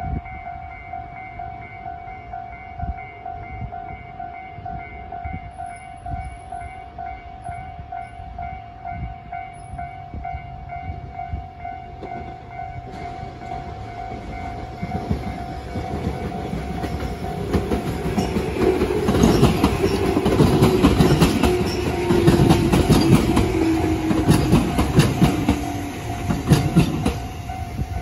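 Japanese level-crossing warning bell ringing in a steady, rapid electronic repeat. From about halfway through a Tobu train comes through, growing loud, its wheels clattering over the rail joints with a slowly falling whine; the train sound fades just before the end.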